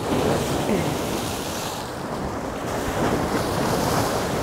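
Sea waves breaking and splashing against jetty rocks, with wind buffeting the microphone; the sound cuts off suddenly at the end.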